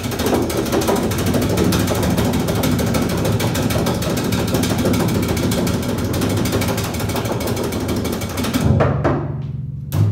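Double basses playing a fast rattling tremolo over low held notes, standing in for a suspense drum roll. About eight and a half seconds in the rattle stops and a loud low held note sounds, cut off with an accent near the end.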